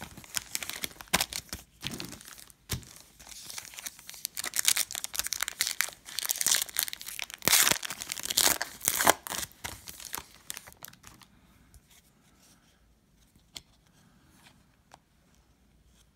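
Foil wrapper of a Donruss Optic basketball card pack being crinkled and torn open by hand: a dense run of crackling and tearing that dies away about eleven seconds in.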